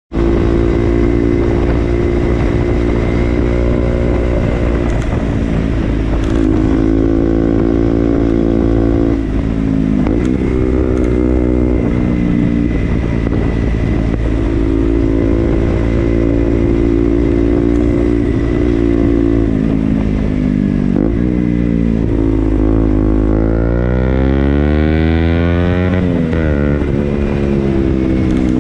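KTM Duke motorcycle engine running, its note holding steady for stretches and shifting in pitch several times, then climbing in a long rise and dropping back near the end.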